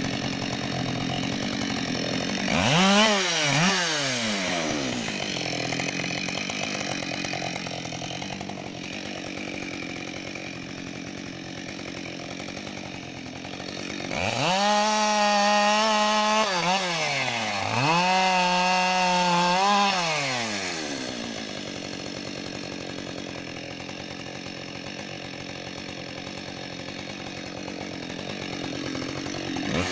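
Husqvarna 572XP two-stroke chainsaw idling, revved twice in quick succession about three seconds in. About halfway through it is held at full throttle twice for two to three seconds each, dropping back to idle between and after, and it revs up again at the very end.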